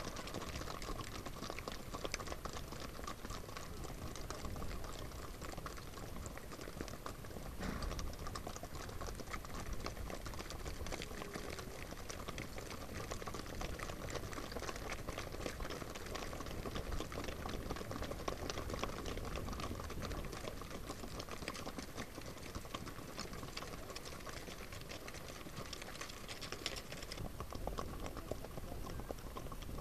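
Hooves of many Icelandic horses moving fast on a gravel track, making a dense, rapid, steady clatter.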